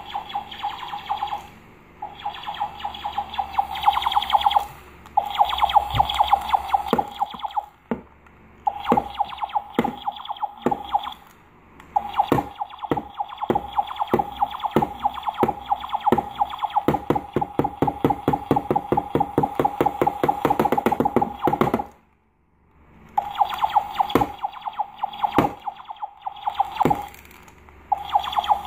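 Electronic sound effects from battery-powered toy guns: a buzzy electronic tone that starts and stops in short stretches, with rapid clicks that speed up into a fast rattle around the middle and a brief pause about two-thirds of the way through.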